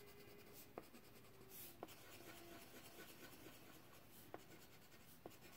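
Faint scratching of a crayon shading on paper, with a few soft ticks.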